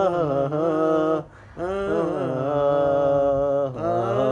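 A man singing unaccompanied in a long, drawn-out vocal line without clear words, holding wavering notes, broken by a short pause for breath a little over a second in.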